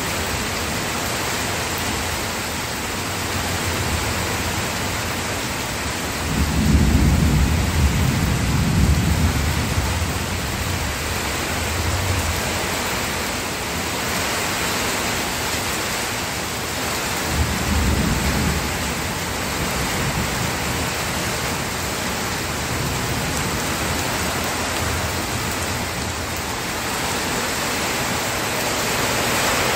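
Steady rain with two low rolls of thunder: a long one starting about six seconds in and lasting several seconds, and a shorter one about seventeen seconds in.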